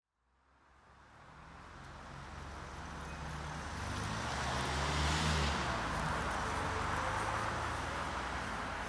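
A vehicle's engine running with a low hum and a hiss, fading up from silence over the first few seconds and loudest about halfway through.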